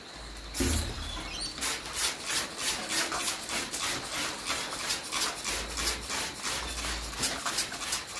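Hand trigger spray bottle squirting water onto painted sheet metal in quick repeated pumps, about three short hisses a second, after a soft bump near the start.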